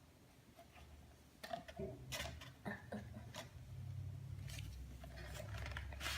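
Faint scattered taps and scrapes as cornstarch is scooped into a plastic measuring cup, about half a dozen small knocks in all, over a low hum.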